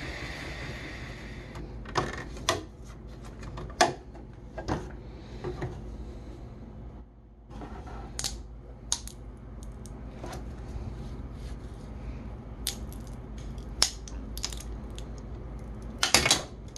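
A 3D printer running for the first second or so, then scattered sharp clicks and taps of a hard plastic printed sign being handled on a table, ending in a quick cluster of scrapes and clicks as a knife trims stringing off the print.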